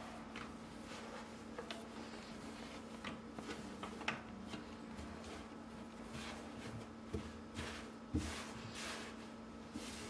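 Cotton gauze towel rustling as it is smoothed and patted flat on a cabinet shelf, with scattered light taps and knocks. A steady low hum runs underneath.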